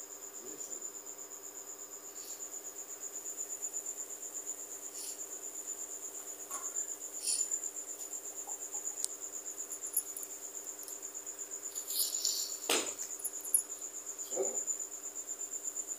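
A cricket chirping steadily in fast, even pulses, about five a second, over a low steady hum, with one brief knock about thirteen seconds in.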